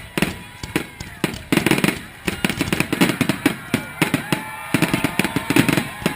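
Fireworks finale barrage: shells bursting in rapid, overlapping succession, many bangs and crackles a second with echoing tails.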